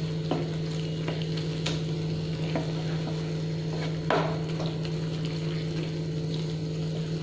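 Spatula stirring and scraping through a thick mix of diced bottle gourd and gram flour in a nonstick kadhai, with a few sharper scrapes against the pan and a soft sizzle over a steady low hum.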